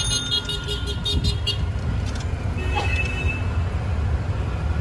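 Busy street traffic heard from a moving cycle rickshaw: a steady rumble of vehicles, a rickshaw bell ringing in a rapid trill through the first second and a half, and a short horn toot about three seconds in.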